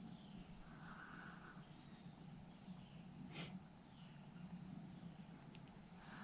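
Near silence: a faint, steady, high insect trill, with a single soft click about three and a half seconds in.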